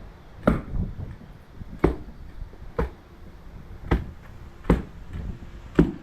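Hand tamper striking rubber concrete stamp mats, six sharp thuds about a second apart. The tamper is pressing the stamp pattern into fresh concrete.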